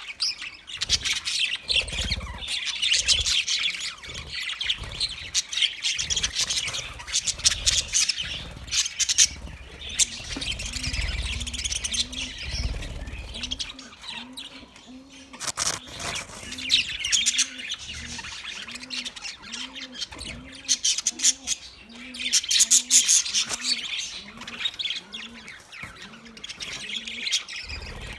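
A flock of budgerigars chattering and warbling, with fast, overlapping chirps and squawks that come in bursts and ease off briefly now and then. A low pulsing sound repeats about twice a second in the background from about a third of the way in.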